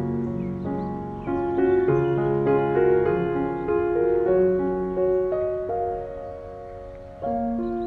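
Piano music playing a slow melody over held chords, with a new chord struck about a second in and again near the end.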